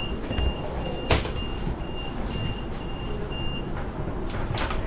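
Electronic door warning beeper sounding a rapid, even series of high beeps, about three a second, that stops a little before the end. A sharp knock comes about a second in, and a couple of clicks follow near the end.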